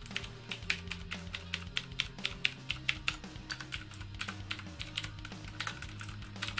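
Rapid, irregular typing on a Deck Hassium Pro mechanical keyboard with clicky blue switches: several sharp key clicks a second.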